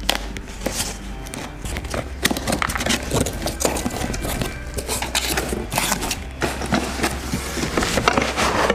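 Cardboard box being opened by hand: packing tape peeled off and the cardboard flaps pulled open, a dense, irregular run of scraping, rustling and clicking noises.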